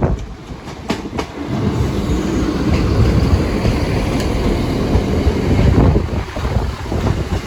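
A diesel passenger train passes over the level crossing with a heavy, steady rumble of wheels on rail and a few sharp clicks about a second in.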